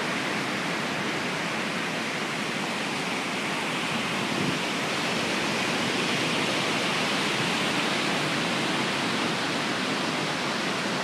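Ocean surf breaking along a beach: a steady, even wash of noise with no single wave standing out.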